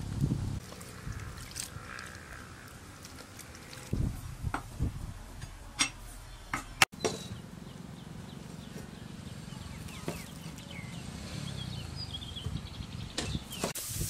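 A knife knocking a few times on a wooden chopping board as meatballs are cut, sharp single knocks over a quiet outdoor background.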